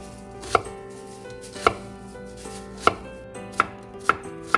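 Kitchen knife chopping an onion into small pieces: six sharp strikes, about a second apart at first and coming faster near the end.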